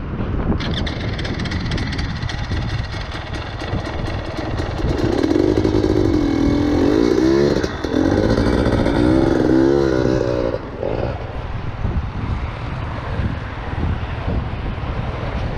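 KTM enduro motorcycle engine revving in quick rising-and-falling blips under load as the bike is worked up a steep rocky step. It is loudest in the middle and drops back to a lower running note about two-thirds of the way through.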